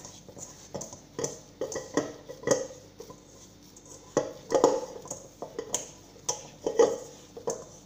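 Risen brioche dough punched down and kneaded by hand in a stainless steel pot: irregular thuds and knocks as the dough and hands strike the pot's sides, the loudest about halfway through and near the end.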